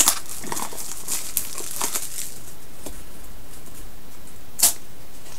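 Plastic packaging of a Mystery Mini blind box crinkling and being torn open by hand, without scissors. Scattered crackles, with a louder one near the end.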